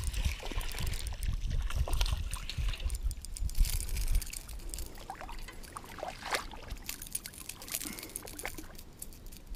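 Spinning reel being wound in while a small flathead on a diving lure splashes at the surface, under a low rumble through the first few seconds. The fish is then lifted out of the water, dripping, and short clicks and splashes follow as it is grabbed by hand.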